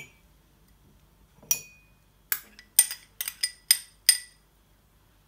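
Small glass bowl clinking as egg yolk is knocked and scraped out of it over a ceramic mug: one ringing clink, then about a second later a quick run of about seven sharp clinks.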